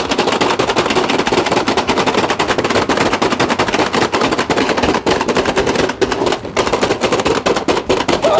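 Two players hammering the plastic buttons of a Hasbro Pie Face Showdown game as fast as they can: a dense, fast rattle of clicks.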